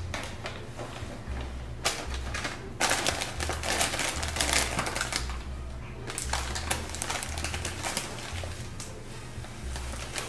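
Dense, rapid clicking and clattering in two long stretches from about three seconds in, over background music with a stepping bass line.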